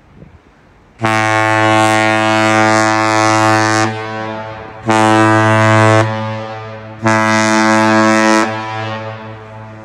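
Deep air horn of the Great Lakes freighter Michipicoten, sounded close by as three blasts: one long of about three seconds, then a short one, then a slightly longer one.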